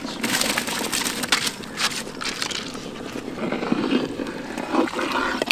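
Raw basmati rice being poured into a large pot of boiling stock: a continuous rushing hiss of grains with many small sharp clicks and splashes.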